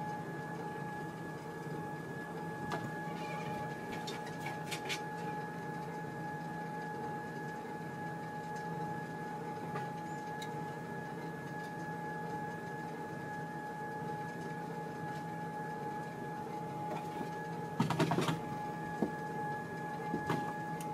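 Sole treadmill running, its motor giving a steady whine over the hiss of the moving belt. A few light clicks come a few seconds in, and a brief burst of louder knocks and scuffs comes near the end.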